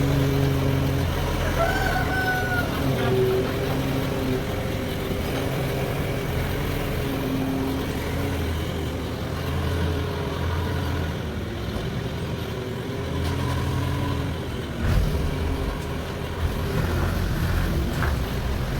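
Band sawmill machinery running through a teak log: a steady low, engine-like hum whose pitch shifts a little, with a single knock about fifteen seconds in.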